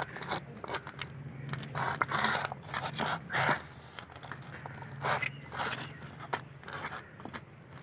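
A hand working a dry mix of flour, spices and chopped raw potato in a metal bowl, giving irregular scraping and rustling as the fingers dig through the mix and scrape the bowl.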